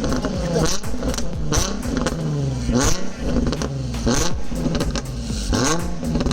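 Nissan 350Z's 3.5-litre V6 through an HKS exhaust, revved up and back down several times in quick succession.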